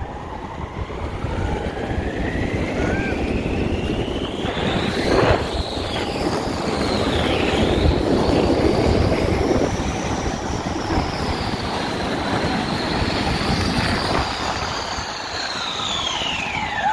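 Snow tube sliding fast down a groomed corduroy snow lane: a steady rushing scrape with a whine that climbs slowly in pitch, wavers, and drops away sharply near the end as the tube slows.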